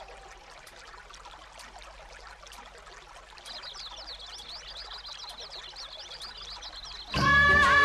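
Background music cuts out, leaving faint ambient hiss from the live recording with small scattered clicks; from about halfway, rapid high chirps repeat many times a second. Near the end the song comes back in loudly.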